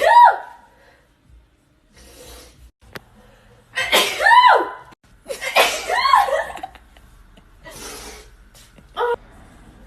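A young woman sneezing in a fit: loud sneezes at the start, about four seconds in and about six seconds in, each a sharp breath out with a voiced 'choo' that rises and falls in pitch. Quieter breathy intakes come between them, and a short smaller sound near the end.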